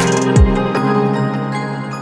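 Background music: a low falling sweep about half a second in, then held chords that slowly fade.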